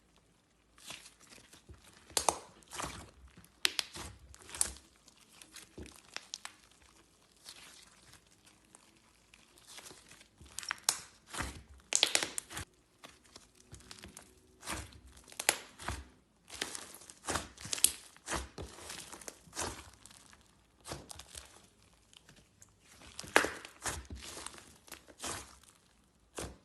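Slime being squeezed and poked by hand, giving irregular clusters of crackling clicks and pops with short pauses between them.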